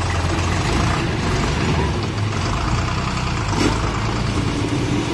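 Deutz-Fahr tractor's diesel engine running steadily under load while towing a stuck SUV out of mud on a rope.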